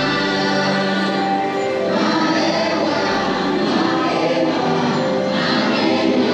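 The ride's musical soundtrack: a choir singing held, slowly changing chords over sustained instrumental tones.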